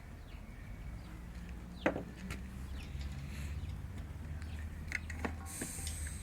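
Scattered metal clicks and knocks from the drain valve at the bottom of an air compressor tank being handled, over a low steady hum, with a brief high hiss near the end.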